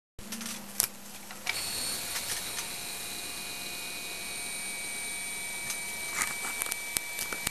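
Refrigeration compressor of a single-stage propane-butane cooling rig running, sped up four times, a steady whine of several high tones with scattered clicks.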